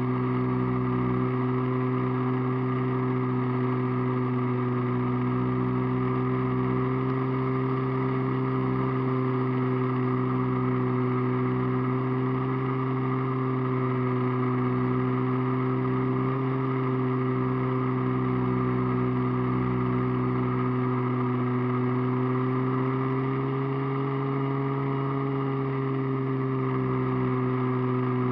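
Radio-controlled airplane's motor and propeller heard from a camera mounted on the plane in flight: a steady droning hum with wind rush, its pitch rising slightly a little past two-thirds of the way through before settling back.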